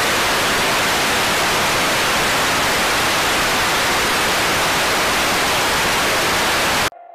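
Loud, steady hiss of analogue television static that cuts off suddenly near the end, leaving a faint sustained musical tone.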